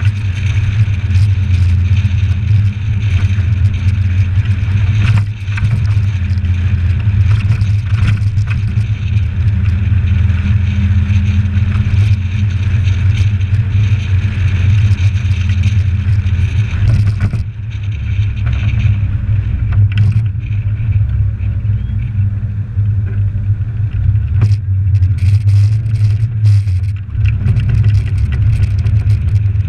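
Suzuki Samurai 4x4 driving along a road, its engine and road noise a steady low drone. It is picked up by a GoPro in its closed case on the bonnet, so the sound is not quite right. There is a brief dip a little past halfway and a few faint clicks near the end.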